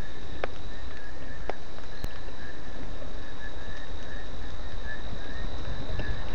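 Steady rain falling, with a low rumble under it. Over it a night chorus keeps up a continuous high trill and a pulsing chirp, with a few sharp clicks.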